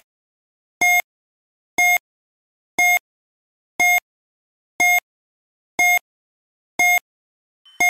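Quiz countdown timer sound effect: short electronic beeps, one each second, with silence between them, counting down the seconds left to answer. A brighter ringing chime starts right at the end as the countdown runs out.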